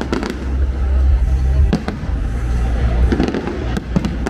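Fireworks display: a handful of sharp bangs and cracks from bursting shells, one near the start, one a little under two seconds in and a couple near the end, over a continuous low rumble.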